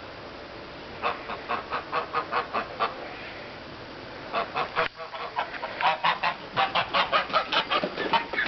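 Domestic geese honking in quick runs of short calls, about five a second, with a pause of about a second in the middle.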